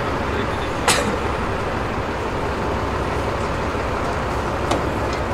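Heavy truck engine running steadily, an even low rumble, with a brief sharp hiss about a second in.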